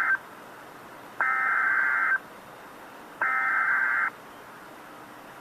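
Emergency Alert System SAME header from NOAA Weather Radio: loud bursts of warbling digital data tones about a second long, the end of one burst and then two more a second apart, over faint radio hiss. The bursts encode the alert's event type and areas and mark the start of an emergency alert, here a tornado warning.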